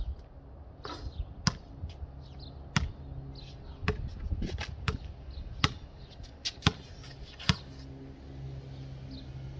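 Basketball bouncing on a concrete court, a sharp slap at each bounce: about seven of them, spaced unevenly up to a second apart.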